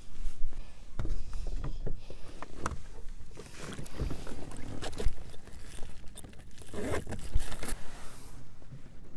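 Water splashing and lapping against a fishing kayak's hull, with scattered sharp knocks and clicks of gear being handled on board.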